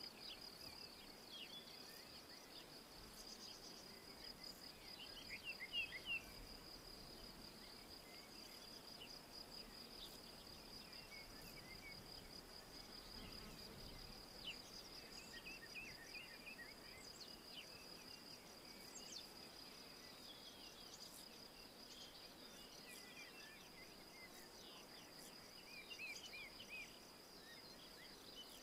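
Faint woodland ambience: an insect, cricket-like, gives a steady high-pitched pulsing chirr, while birds call in short scattered chirps now and then.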